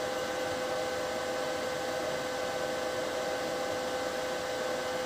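Steady hiss with a faint, constant hum of a few pitches; no music playing.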